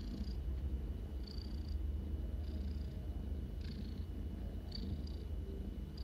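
Kitten purring steadily while it is rubbed and played with, with faint short rustles about once a second.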